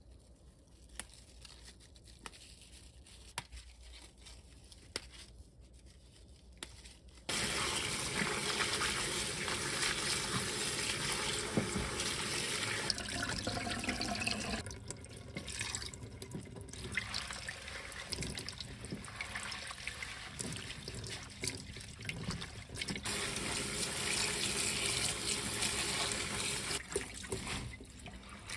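Faint scattered ticks as perilla shoots are picked over a steel sink. About seven seconds in, a kitchen tap suddenly comes on and runs into a stainless steel bowl, with hands swishing and pressing the leaves in the water.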